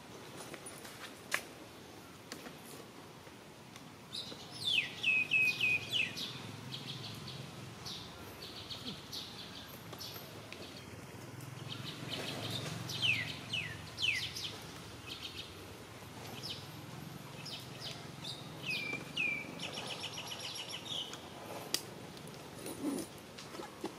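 Bird calls: bursts of quick, high whistles that each fall in pitch, some ending in a short trill, coming three times (about four seconds in, around twelve seconds, and near nineteen seconds) over a faint outdoor background.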